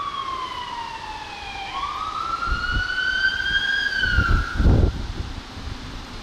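Electronic wail siren on a fire department pickup, one slow cycle that falls, rises and falls again before fading out about five seconds in. A low rumble of wind buffeting the microphone peaks at about four and a half seconds.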